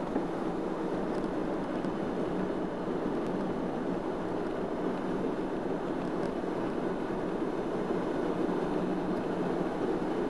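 Steady road noise inside a moving car's cabin: engine and tyres running on wet pavement.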